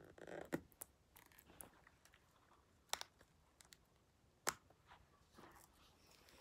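Quiet handling noise: a plastic phone case and phone being fitted together by hand, with a few sharp clicks and taps spread a second or more apart.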